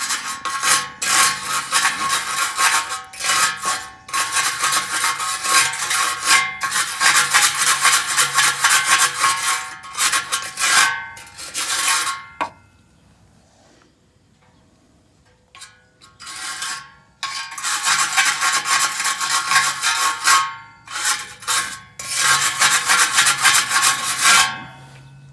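Wire brush scraping rust off the exhaust resonator of a 2012 Chevy Equinox, in long runs of rapid strokes with a pause of about four seconds midway. It is cleaning the cracked resonator before an exhaust-leak sealant goes on.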